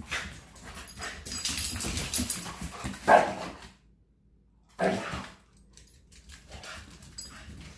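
Two dogs, a German Shepherd and a Shiba Inu, playing with barks: a loud bark about three seconds in after a busy stretch of play noise, a short silence, then another short bark about five seconds in, followed by quieter sounds.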